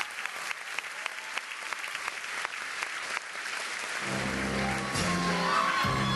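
Theatre audience applauding. About four seconds in, the orchestra comes in over the applause with a repeating low figure and grows louder.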